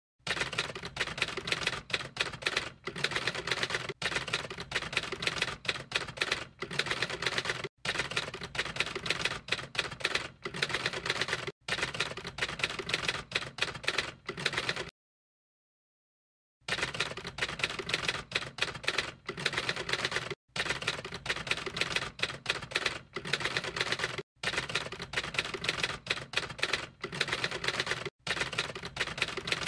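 Typewriter sound effect: rapid clacking key strikes with brief breaks every few seconds and a silent gap of about two seconds midway.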